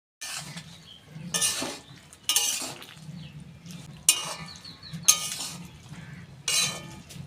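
A utensil stirring and scraping around a kadai of dried jujubes cooking in date-palm jaggery syrup, in about six loud, uneven strokes, over a low, steady hum.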